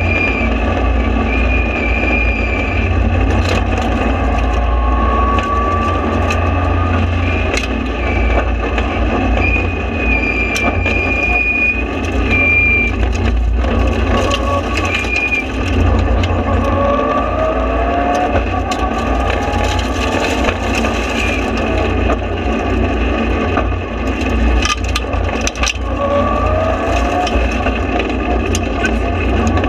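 Mitsubishi Lancer Evolution rally car's turbocharged four-cylinder engine at full stage pace, heard inside the cabin, revving up through the gears again and again. Sharp knocks and cracks come now and then.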